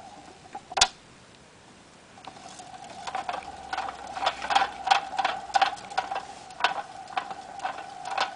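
Small plastic hamster exercise wheel spinning as the hamster runs in it: a steady whirring squeak with regular clicking about three times a second, starting about two seconds in. A single sharp click comes about a second in.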